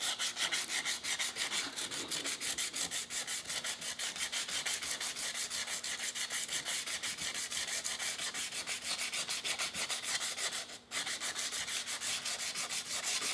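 100-grit sandpaper rubbed by hand around the glazed iron braking surface of a Honda CB450 rear brake drum, in quick, even back-and-forth scratching strokes with one brief pause about three-quarters of the way through. The sanding breaks the mirror-shiny glaze down to a dull gray finish, readying the drum for new brake shoes.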